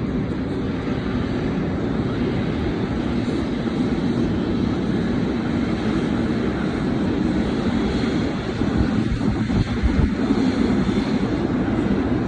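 Boeing 777 jet engines running with a steady, loud rumble, with a few low thumps about nine seconds in.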